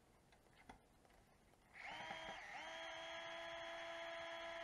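Small electric screwdriver motor whining as it backs out a screw, starting about two seconds in, hitching briefly, then running at a steady pitch.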